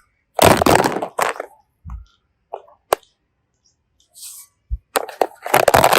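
Handling noise from plastic containers and slime ingredients: two loud crackling rustles, one near the start and one near the end, with a sharp click about three seconds in and a few small taps between.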